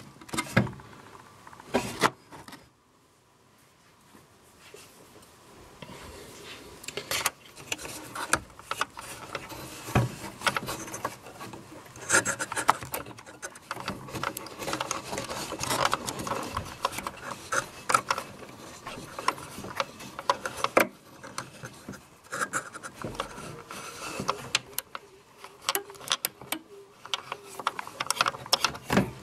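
Hands fitting a rubber drive belt onto the plastic pulleys of a CD changer's door mechanism: irregular rubbing, scraping and small clicks of fingers on the belt and parts, with a quiet spell a few seconds in.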